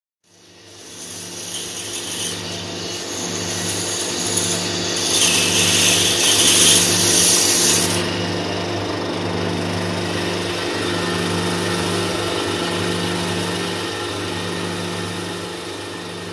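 Pegas fine-cut bandsaw running with a steady motor hum while its thin blade cuts through a block of squared wood. The cutting hiss swells loudest from about five to eight seconds in.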